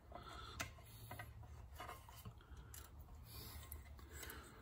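Faint, scattered small clicks and light rubbing of pliers and a small metal C-clip being worked onto a pin, over a low steady hum.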